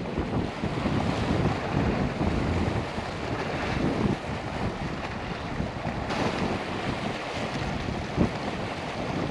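Strong wind blowing across the microphone, buffeting it unevenly in gusts.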